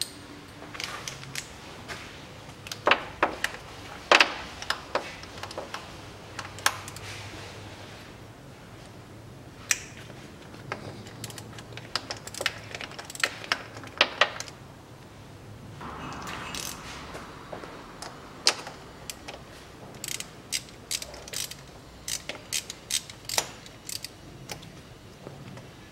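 Hand ratchet with a 10 mm socket clicking in irregular runs of quick clicks as it loosens the bolts of the CVT's heat exchanger. The clicks come faster and closer together in the second half.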